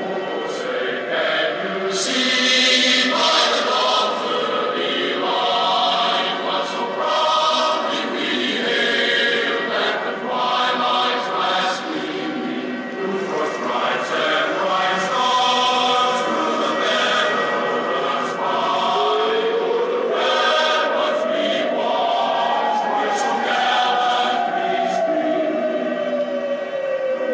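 Choral music: a choir of voices holding chords that change every second or so. About two-thirds of the way through, a single tone rises steadily, then slowly falls again, like a siren wail.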